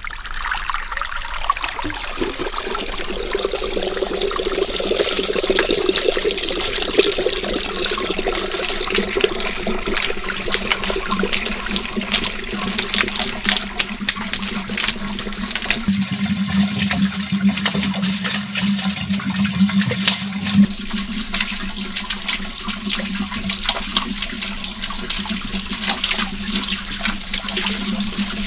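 Water pouring and splashing steadily into a pool.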